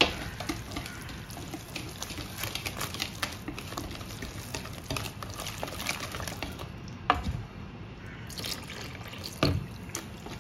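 Wet flour-and-water batter being stirred in a bowl: a steady wet crackle, with two sharper knocks about seven and nine and a half seconds in.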